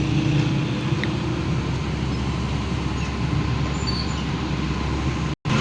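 A heavy engine running steadily, with road traffic noise around it. The sound cuts out for a moment near the end.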